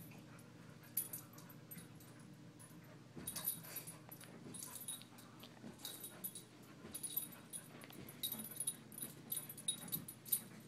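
A beagle hunting around for hidden treats: irregular short clicks and scratchy sounds, coming thicker from about three seconds in, over a steady low hum.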